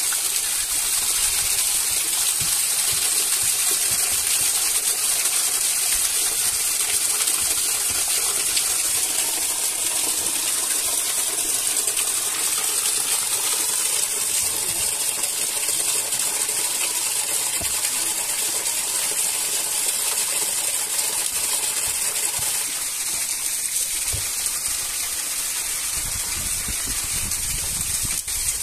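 Steady rushing water noise that runs on without a break, with a few faint clinks or ticks over it.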